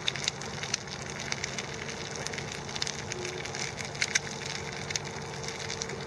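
Campfire crackling, with irregular sharp pops and snaps, over a faint steady drone.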